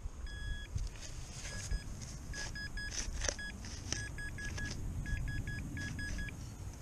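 Metal detector beeping as it passes over a buried metal target: short beeps of one steady, fairly high pitch in irregular clusters. A few sharp clicks and a low rumble sit underneath.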